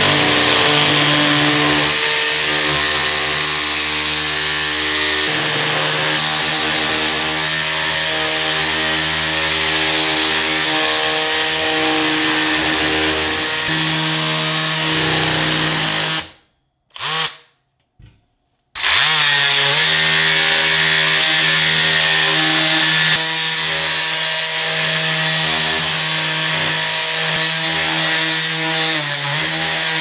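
Parkside PKGA 20-Li C2 cordless multi-tool with its detail-sander attachment running while sanding a wooden board: a steady motor hum with the hiss of sandpaper on wood. It cuts out for about two seconds around the middle, then runs on.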